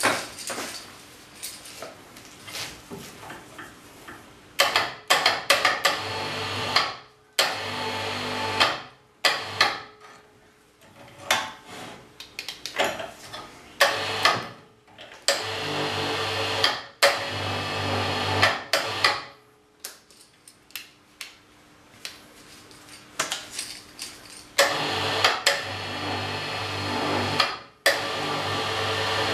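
Electric wire-rope hoist motor running in several runs of a few seconds each, winding its steel cable in and out. Sharp clicks and knocks come between the runs as it starts and stops.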